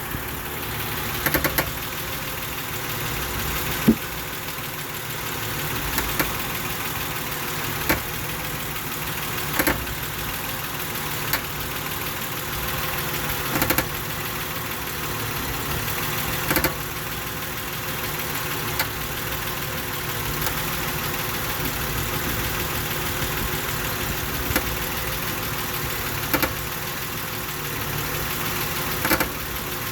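Honda Odyssey 3.5-litre V6 idling steadily, with sharp clunks every couple of seconds as the steering is turned again and again: the noise the van makes when turning, which is being tracked down.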